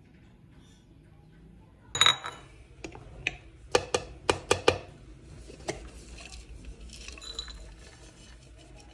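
A spatula knocking and scraping inside a plastic food-chopper bowl of chopped walnuts: a loud clatter about two seconds in, then a quick run of sharp knocks, followed by softer rustling as the chopped walnuts are tipped out into a ceramic bowl.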